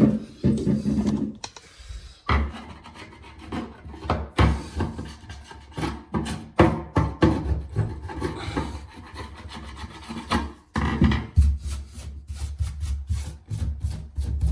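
Scraping and scrubbing old plumber's putty off a drain fitting, in repeated rasping strokes that speed up into quick, even back-and-forth rubbing about two-thirds of the way through.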